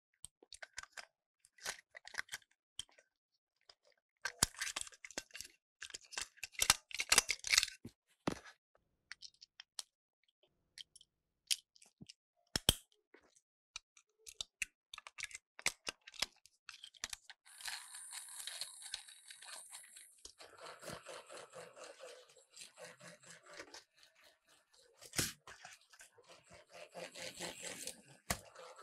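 Plastic toy train being handled and taken apart by hand: a run of sharp plastic clicks and snaps, then a longer stretch of scraping and rattling in the second half, with one loud click near the end.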